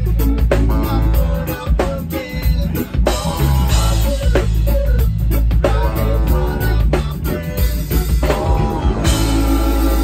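A live band playing loud: drum kit, bass and electric guitar, with a singer on the microphone.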